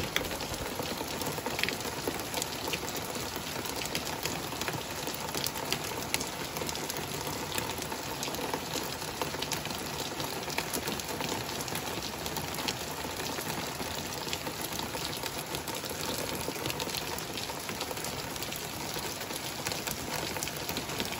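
Torrential rain pouring down steadily: a dense, even hiss of downpour speckled with the clicks of individual drops striking surfaces.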